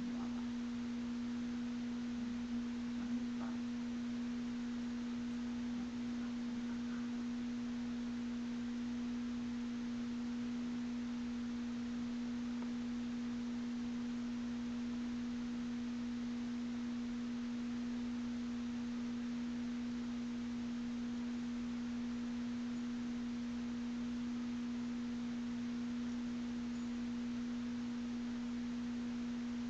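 A steady, unchanging single-pitch hum with a fainter tone an octave above it, like an electrical whine in the recording. A couple of faint ticks come about three seconds in.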